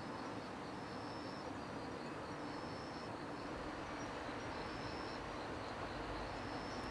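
Insects singing in short, high trills that repeat about every second and a half, over a steady background hum.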